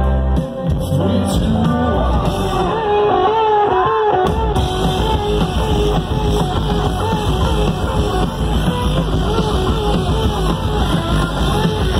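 A live rock band playing loudly, heard from within the crowd: a voice sings a wavering melody over guitars and drums. The band sound grows fuller about four and a half seconds in.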